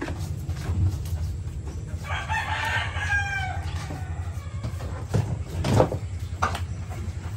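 A rooster crows once, a long call starting about two seconds in, over a steady low hum. A few knocks follow a couple of seconds later.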